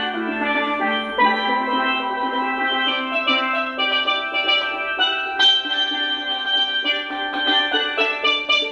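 Steel pan played live: a melody of ringing struck notes over lower notes that are held.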